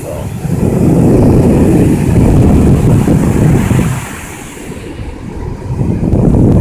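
Wind buffeting the microphone at the beach: a loud low rushing rumble that swells for about four seconds, eases off, then swells again near the end.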